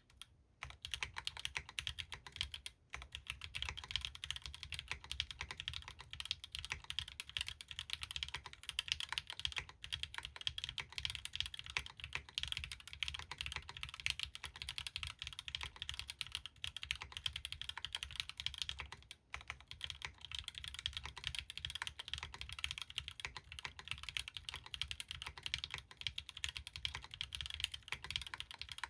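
Fast, continuous typing on a Bahm Studio Droplet custom mechanical keyboard with stock Gateron L'Orange linear switches, a carbon fiber plate and Linworks Greige keycaps: a dense stream of keystroke clacks, with short lulls about three seconds in and just after nineteen seconds.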